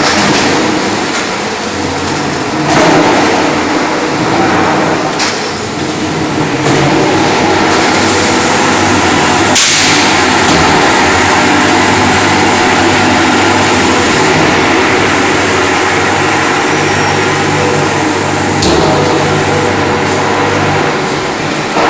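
Airless paint sprayer at work: the pump's motor hums steadily under the hiss of paint spraying from the gun. The gun hisses in a few short spells at first, then sprays continuously for most of the rest.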